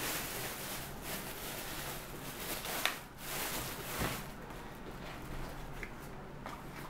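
Plastic carrier bag rustling and crinkling as it is pulled off a plastic food basket, with a sharp click about three seconds in and a knock about a second later.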